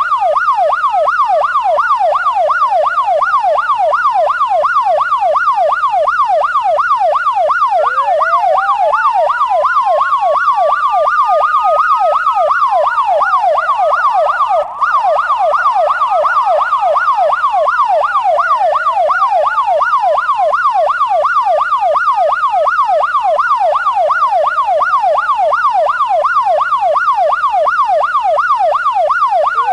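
Electronic siren with a fast yelp, about four rises and falls a second. A slower wail that climbs over several seconds and then drops sounds together with it. It cuts out very briefly about halfway through.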